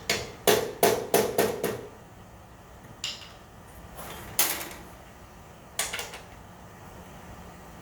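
Metal tools clanking and knocking against a spin bike's bottom bracket as the bottom bracket tool and breaker bar are refitted: a quick run of about five knocks in the first two seconds, then three single knocks spaced a second or so apart.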